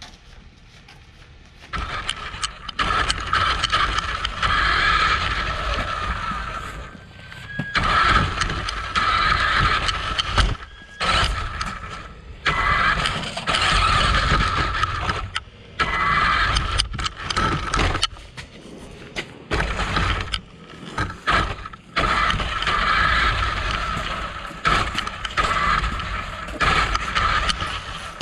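Electric RC buggy's motor and drivetrain whining as it drives, the throttle going on and off so the whine starts and stops repeatedly, with its tyres rolling over pavement and a concrete floor.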